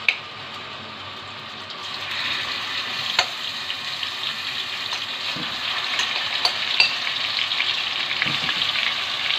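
Marinated minced meat sizzling as it fries in hot oil in a metal pot, growing louder about two seconds in. A few sharp clicks stand out over the sizzle.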